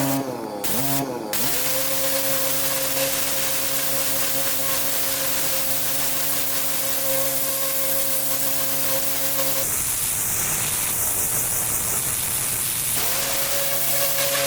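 Pressure washer engine running steadily under the hiss of a high-pressure water spray. Its note dips and recovers twice about a second in. Near the end, for about three seconds, only the hiss is heard before the engine note returns.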